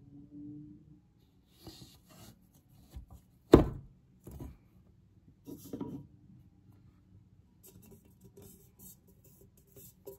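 Fragrance bottles being handled and set down on a hard surface. There is one loud knock about three and a half seconds in, a softer knock just after, then rubbing and light taps and clicks.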